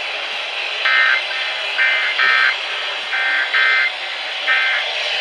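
Emergency Alert System end-of-message data bursts: six short, shrill warbling digital tone bursts about a second apart, closing the Texas EAS test. They play over steady radio hiss.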